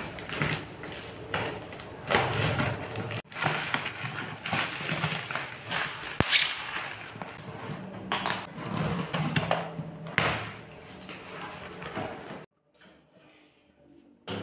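Unpacking a parcel: plastic bubble wrap and packing tape crinkling and tearing, then scissors cutting through a cardboard box, in a run of irregular rustling and scraping bursts that cut off near the end.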